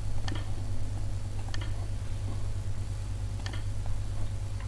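Three sharp computer mouse clicks, spaced a second or two apart, over a steady low hum.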